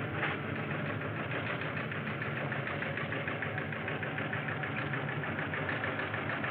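Steady, rapid mechanical clatter of space-station machinery from an old science-fiction film's soundtrack, over a steady low hum.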